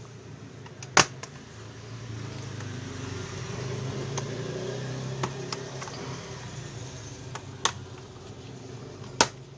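Plastic snap clips of an HP 14s laptop's bottom case popping loose as the case is pried open with a plastic card: sharp clicks, the loudest about a second in and two more near the end, with fainter ticks between. Under them runs a steady low hum.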